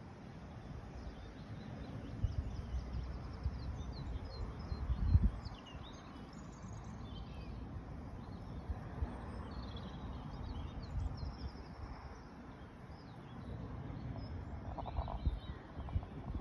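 Wind buffeting the microphone in uneven gusts, strongest about five seconds in, with small birds chirping and singing in the background.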